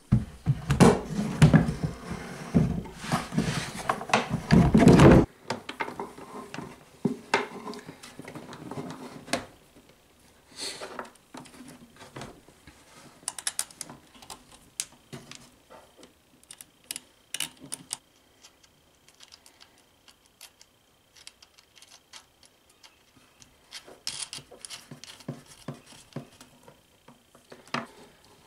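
Heavy scraping and bumping for about five seconds as a 12-volt battery is settled into a wooden box, then scattered light metallic clicks and clinks as cables with ring terminals are handled and fitted onto the battery's studs.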